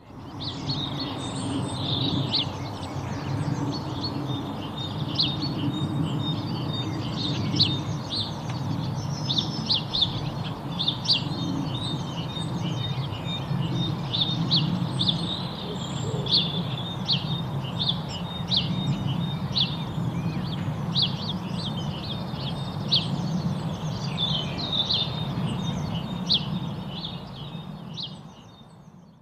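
Many small birds chirping in quick, short calls, over a steady low rumble; the sound fades out near the end.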